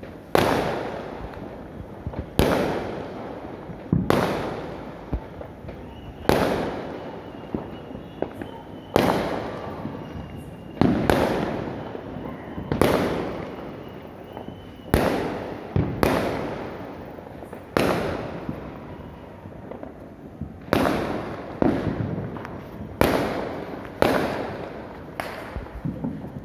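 Aerial fireworks bursting in the sky, about fifteen loud bangs one after another, one every one to three seconds, each trailing off in an echo.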